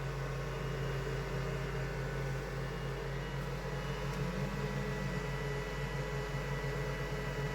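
Steady mechanical hum with several steady tones over a light hiss, from a small machine running; the pitch of the low tones shifts slightly about halfway through.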